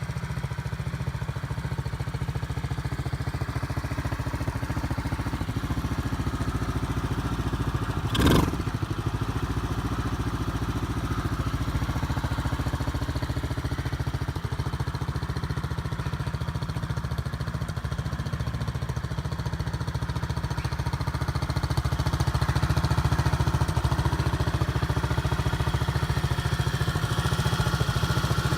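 YD 008/8" Premium 125 cc quad's engine idling steadily. A single sharp knock comes about eight seconds in, and the engine runs a little louder over the last few seconds.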